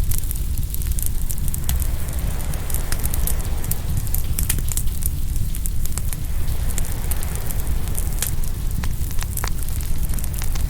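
Open wood fire crackling and popping, with irregular sharp snaps over a steady low rumble and a slowly swelling wash of waves.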